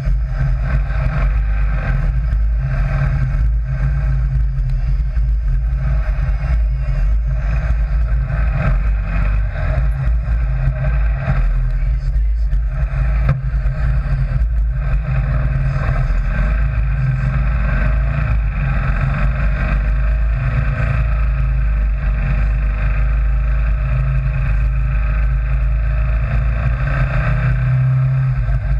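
Sand rail dune buggy's engine running steadily under way, a continuous low drone with no breaks.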